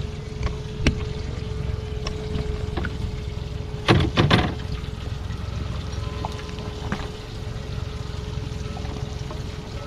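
Water pouring and trickling into a boat's livewell under a steady hum, with a short burst of knocking and splashing about four seconds in.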